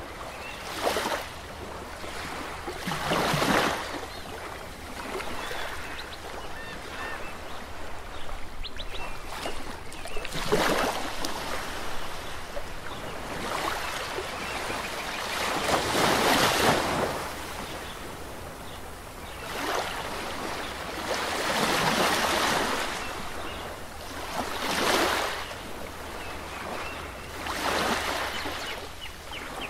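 Sea water washing against the rock at the mouth of a sea cave, a steady hiss that swells into a louder surge every few seconds and then draws back.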